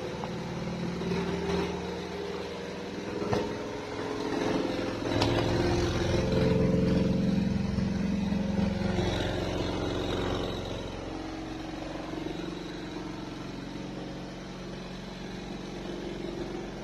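Twin-tub washing machine's spin dryer running with a packed load, its motor giving a steady hum whose tones shift, with two sharp knocks about three and five seconds in; it runs loudest for a few seconds after the second knock, then settles.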